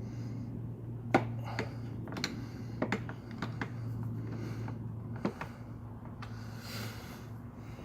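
Scattered sharp metallic clicks and clinks of hand-tool work, a socket and ratchet on the brake caliper bolts, with a brief hiss near the end. A steady low hum runs underneath.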